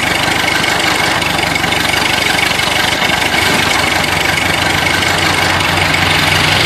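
Propeller aircraft piston-engine sound effect running steadily, with a high steady whine over a low drone.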